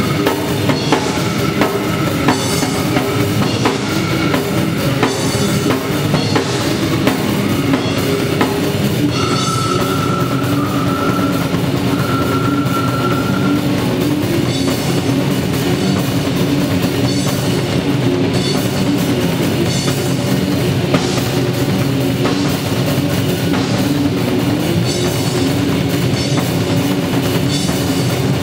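Brutal slam death metal band playing live, heard from the drum kit: the drums sound loudest, with continuous kick drum, snare and cymbal hits over distorted guitars and bass. A held high note rings out for a few seconds about ten seconds in.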